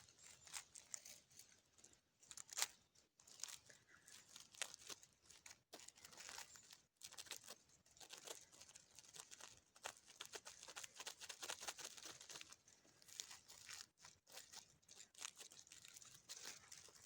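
Dry forest litter crunching and rustling in faint, irregular crackles.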